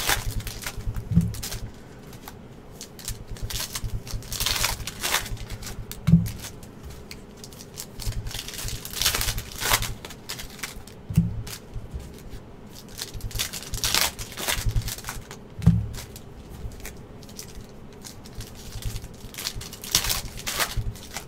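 Trading card pack wrappers being torn open and crinkled, with rustling of handled cards and a soft thump about every five seconds.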